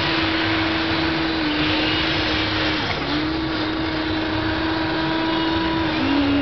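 Electric motors of a radio-controlled Hobby Engine toy excavator whining steadily as the boom and arm move. The pitch steps down about a second and a half in and again near the end, with a short break about three seconds in.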